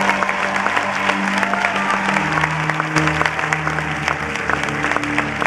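Audience applauding, dense clapping throughout, over background music with long held low notes.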